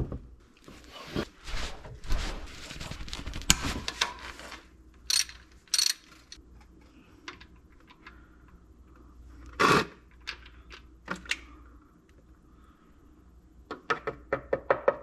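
Mechanic's hand tools and parts being handled under a car during an oil change: rustling and scraping, a few sharp clicks and knocks, and a quick run of clicks near the end.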